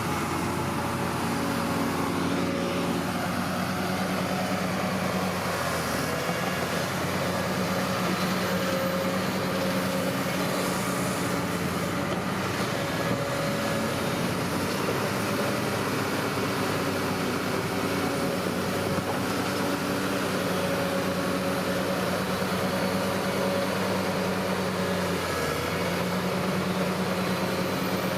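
Bulldozer's diesel engine running steadily under work, with its pitch dipping briefly about six seconds in and again near the end.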